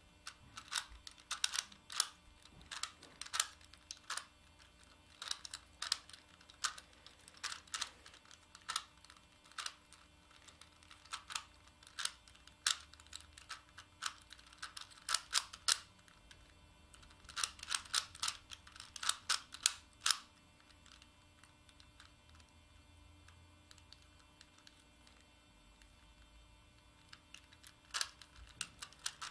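Plastic Megaminx puzzle being turned by hand: its faces click and clack in quick runs of turns, with a stretch of several seconds with hardly any clicks about two-thirds of the way through, before the turning resumes near the end.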